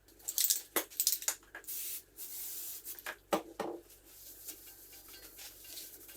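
A quick run of light clicks and knocks, then a short spraying hiss with a fainter hiss after it, and two louder knocks near the middle.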